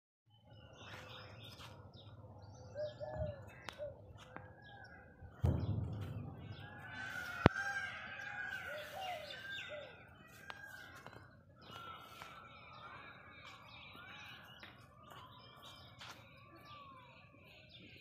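Many birds chirping and calling in short, overlapping chirps throughout, busiest around the middle. A low thump comes about five and a half seconds in, and a single sharp click, the loudest sound, about two seconds later.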